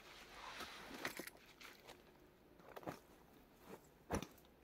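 Faint crunching of footsteps and dry branches on the forest floor, with a few sharp snapping cracks of twigs; the loudest crack comes near the end.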